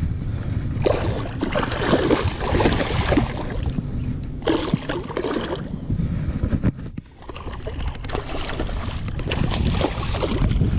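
Wind buffeting the camera microphone over sloshing, splashing water, as a hooked fish thrashes at the surface beside the kayak. The sound drops out briefly about two-thirds of the way through.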